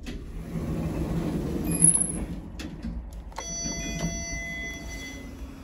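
Lift car doors sliding shut with a low rumble and a sharp thud just before two seconds in, a click, then an electronic beep of several steady tones from about three and a half seconds in, lasting about a second and a half, as the floor 1 call button is pressed.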